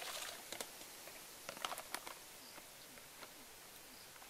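Light clicks and knocks from handling a plastic basket of peeled boiled eggs, most of them between about one and a half and two seconds in. A few faint short high chirps sound in the background.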